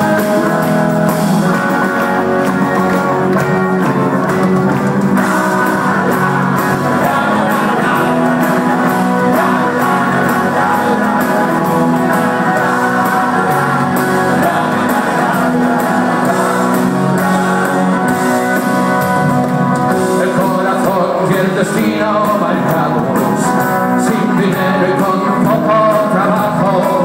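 Rock band playing live, with electric guitars and drums, heard from the audience in a large hall.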